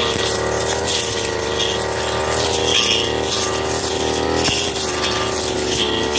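Backpack brush cutter's engine running steadily at high speed while its cutting head sweeps through thick cogon grass, with a hissing swish about once a second as it cuts.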